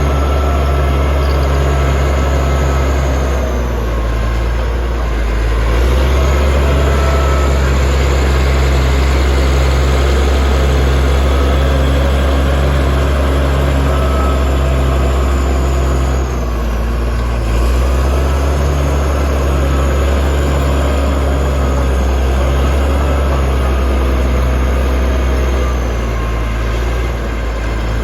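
Bulldozer's diesel engine running under load, a steady deep drone. Its pitch dips and recovers twice, about four seconds in and again about sixteen seconds in.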